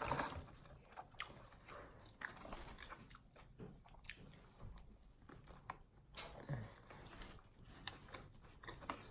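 Close-up chewing and biting of a turkey submarine sandwich: many soft, wet mouth clicks and smacks at an uneven pace.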